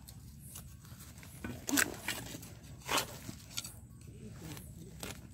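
A metal digging blade scraping and striking dry soil and grass stalks. There are several short, sharp scrapes, the loudest a little under two seconds in and about three seconds in.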